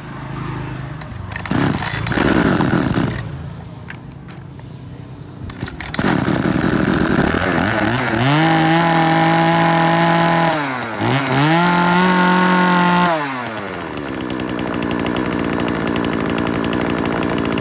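Echo 3401 34cc two-stroke chainsaw being pull-started with the choke pulled, the engine catching about six seconds in. It is revved twice to a high steady pitch, dropping between the revs, then settles back to a steady fast idle.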